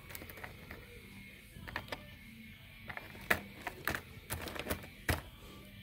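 Scattered light clicks and taps of small plastic chip-programmer adapters being picked up and handled on a workbench, a few of them sharper and louder through the middle and near the end.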